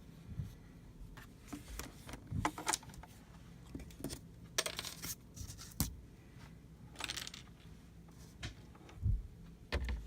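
Handling of a toolbox case and its foam insert: scattered clicks and knocks with a few short rustles and scrapes.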